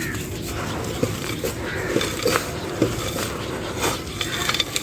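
Dry crunchy clay crumbling: a string of irregular crunches and sharp cracks.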